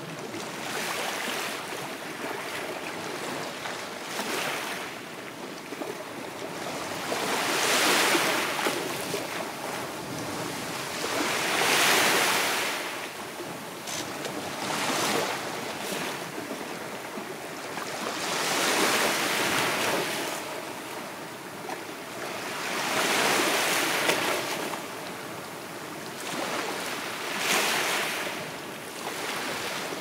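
Small sea waves breaking and washing onto the shore. The surf swells and fades roughly every four seconds.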